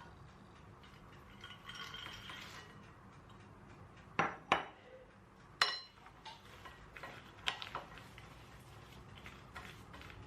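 Tableware being handled: a few sharp clinks of utensils against dishes in the middle of the stretch, one ringing briefly, with soft handling noise between.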